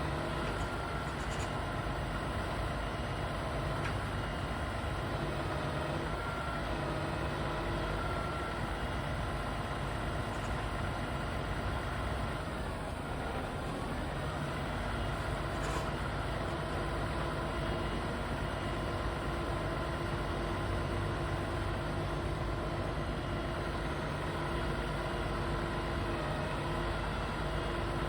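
A heavy vehicle engine running steadily, with an even low rumble that holds without change.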